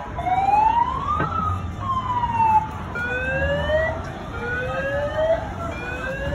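Sirens wailing, more than one at once, their overlapping sweeps rising and falling in pitch.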